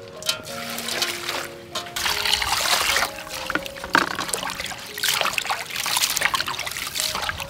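Water sloshing, splashing and trickling in a metal bowl as hands swish and squeeze shredded ginger to wash it, in repeated surges.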